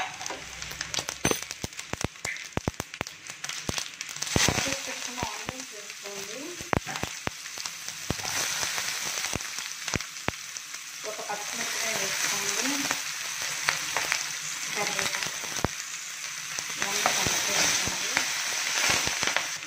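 Mustard seeds, cumin and dried red chillies crackling and popping in hot oil in a frying pan during tempering, with many sharp pops in the first half. About eight seconds in, the sizzle swells into a steady loud hiss as chopped onion goes in, and later green chilli and curry leaves are stirred through with a spatula.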